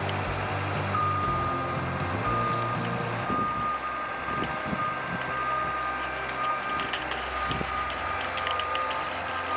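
Reversing alarm on a heavy machine beeping repeatedly on one high tone, starting about a second in, over the low running of its diesel engine.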